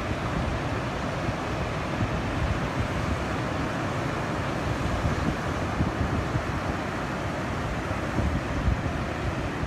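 Wind buffeting the microphone in gusts over a steady rush of ocean surf breaking on a beach.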